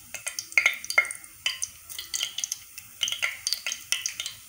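Cumin seeds frying in hot oil in a pressure cooker, crackling with many irregular sharp pops over a soft sizzle: the tempering stage, with the seeds browning.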